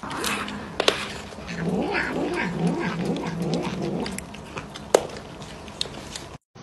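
A tabby cat vocalizing while it bites at a frozen treat: a low, wavering cry that rises and falls in pitch, with a couple of sharp clicks about a second in and again near five seconds. The sound stops suddenly just before the end.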